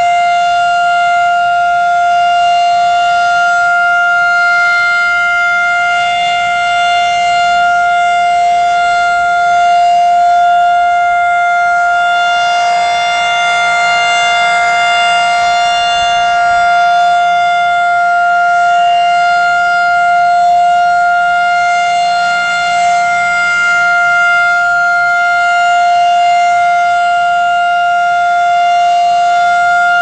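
Federal Signal 508 rotating electromechanical warning siren sounding a steady single tone at full speed for its monthly test. It swells louder and fuller about halfway through as the turning horn sweeps toward the listener.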